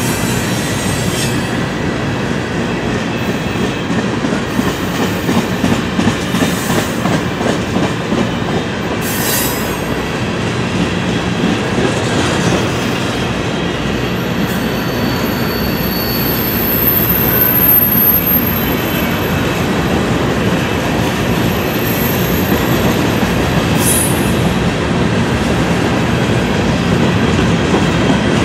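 Freight train cars rolling past close by: steel wheels rumbling and clattering over the rail joints, with a few sharper clacks. About halfway through, a thin high-pitched squeal comes in and holds for several seconds.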